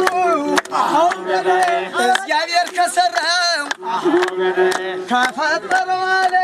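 Masinqo, the Ethiopian one-string bowed fiddle, bowed in a held, buzzing line under a man singing, with a group clapping hands in a steady beat.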